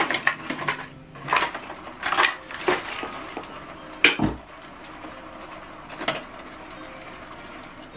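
Light clattering knocks and clicks of hard objects, then a sharp click with a low thump about four seconds in, and one more click near six seconds, over a faint steady hum.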